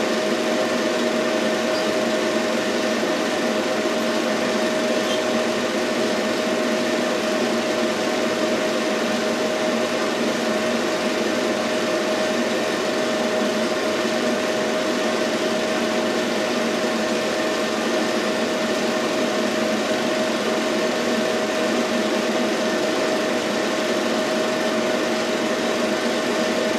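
Steady mechanical whirr of a running home-movie film projector, with a constant hum-like tone through it. It cuts off abruptly at the end.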